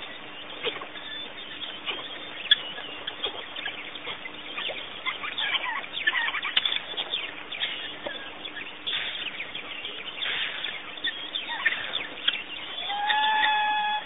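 Waterside bush ambience full of short bird chirps and calls, some sweeping downward. Near the end, one pitched call holds for about a second.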